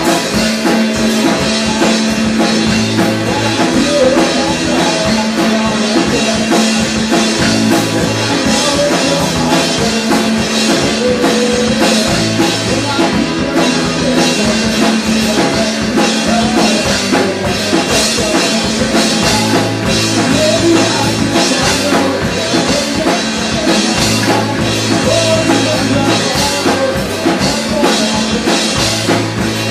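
Live rock band playing at full volume: a drum kit, electric guitars through small amplifiers, and a singer at the microphone.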